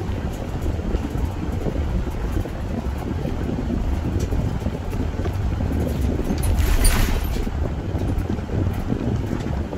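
Car driving along: a steady low rumble of road and engine noise, with a brief louder rush about seven seconds in.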